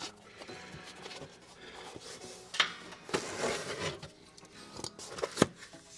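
Handling noises from work on a foam rubber floor lining inside a metal wire dog kennel: a rustling, scraping stretch about three seconds in and scattered sharp clicks and knocks, the loudest near the end.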